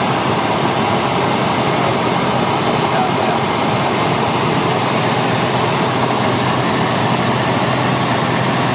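Cessna 150's four-cylinder Continental O-200 engine and propeller running steadily, heard from inside the small cabin with airflow noise, loud and unchanging.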